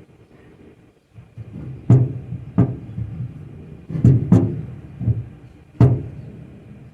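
Five sharp knocks on the wooden van bed frame, each with a hollow low boom; two come close together about four seconds in.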